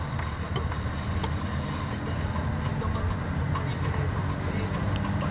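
Steady low rumble of a car driving slowly, engine and road noise, with a few faint clicks.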